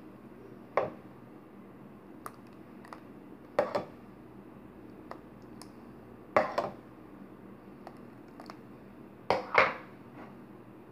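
Kitchenware being handled: four sharp knocks or clinks about three seconds apart, several of them double, the loudest near the end, over a low steady background hum.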